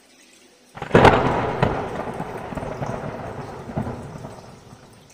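A thunderclap: a sudden crack about a second in, then a rumble with a few smaller jolts that fades away over about four seconds.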